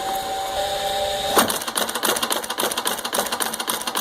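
ACME Steel box stitcher with its 1/2 HP Dayton electric motor running with a steady hum; about a second and a half in, the stitching head starts firing, a rapid run of sharp clacks as it drives wire staples into a cardboard box being fed through.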